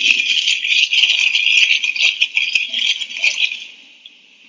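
Loud rustling of paper being handled, with small clicks and crackles, stopping about three and a half seconds in.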